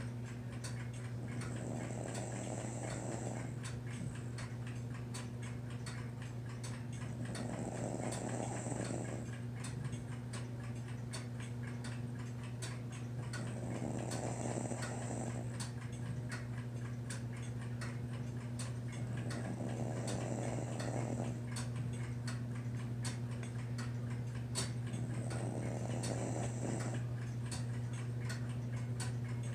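A sleeping pet snoring: five long, rasping breaths about six seconds apart. Behind them run a steady low hum and regular ticking like a clock's.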